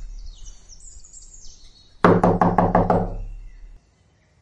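Knocking on a wooden door: a quick run of about six sharp raps about two seconds in, ringing away over the next second.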